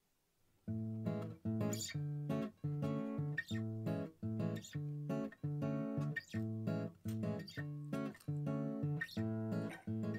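Background music: acoustic guitar strumming chords in a steady rhythm, starting a little under a second in.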